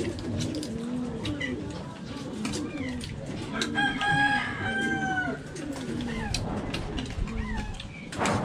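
A rooster crows once, a long call about midway through that drops in pitch as it ends. Light clicks of spoons on plates are heard alongside.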